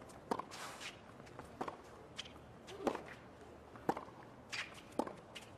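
Tennis rally on a hard court: rackets striking the ball and the ball bouncing, a sharp pock about once a second.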